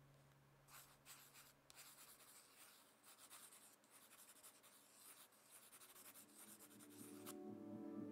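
Faint scratching of writing on paper, in quick irregular strokes, starting about a second in and stopping shortly before the end. Soft ambient music begins to swell in underneath near the end.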